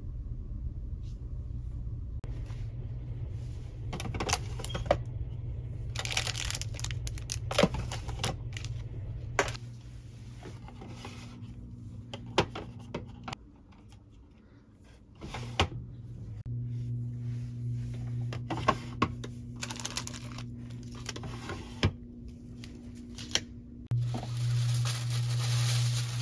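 Paper prints, stickers and plastic packaging being handled on a desk: rustling, light taps and clicks, over a steady low hum.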